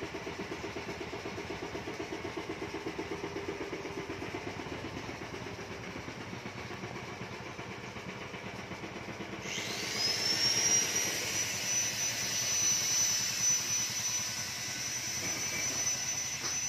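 An engine runs with a fast, even pulse. About halfway through, a power tool's motor spins up, rising quickly to a steady high whine with hiss, and becomes the loudest sound.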